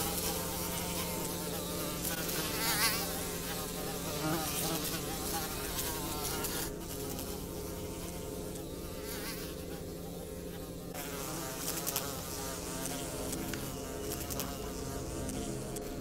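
Flies buzzing, their pitch wavering up and down as they fly about over a steady drone, dropping back for a few seconds in the middle.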